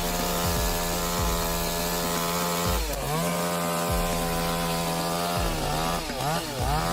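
Chainsaw engine running at high revs with a steady whine, its pitch dipping and recovering about three seconds in and several times near the end.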